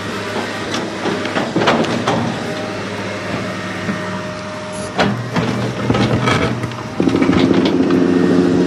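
A steady mechanical hum with scattered clicks and knocks, then from about seven seconds a louder, steadier motor hum.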